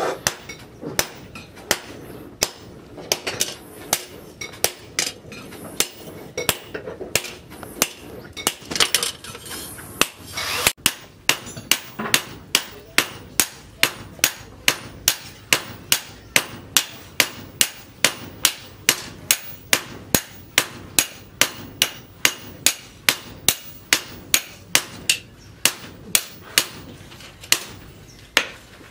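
Hammer blows on a steel cleaver blade, cut from a tractor disc, lying on a post anvil: sharp metal-on-metal strikes. For the first ten seconds or so the blows are sparse and uneven; from about eleven seconds in, the smith's hand hammer and a striker's sledge take turns in a steady rhythm of about two blows a second.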